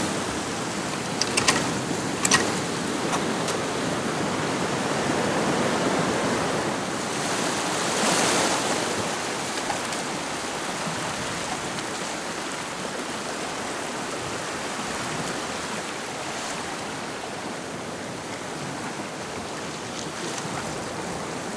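Sea water rushing and swirling past the rocks in a running tide, a steady wash that swells slightly about eight seconds in. A few sharp clicks sound over it a second or two in.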